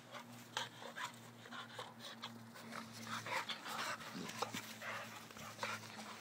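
An Alapaha blue blood bulldog and a blue Staffordshire bull terrier play-fighting: rapid panting and short, irregular play noises throughout, over a steady low hum.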